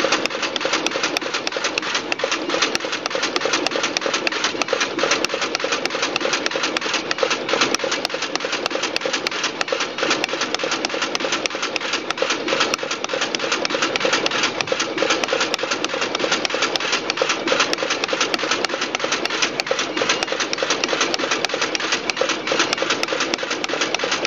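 Duplo business card module running steadily, with rapid mechanical clicking throughout as it cuts sheets and drops finished business cards onto the stacks in its output trays.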